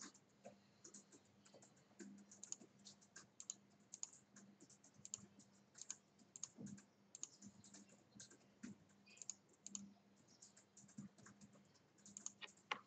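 Faint computer keyboard typing: irregular light key clicks with a steady low hum underneath.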